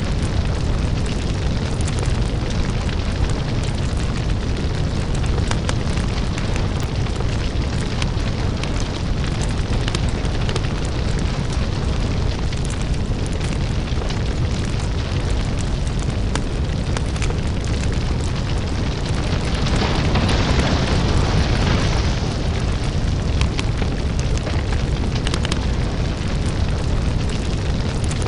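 Crackling lava-fire ambience: a steady deep rumble under dense small crackles and pops, with a louder hissing swell about twenty seconds in.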